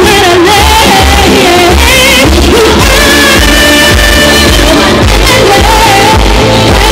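Female singer singing live into a handheld microphone over a loud pop backing track with a pulsing bass beat, through a concert PA. She holds one long note about halfway through.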